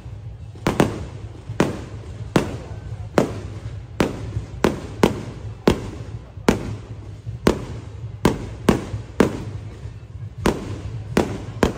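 Fireworks bursting overhead in a rapid series of sharp bangs, about one to two a second, each with a short echoing tail.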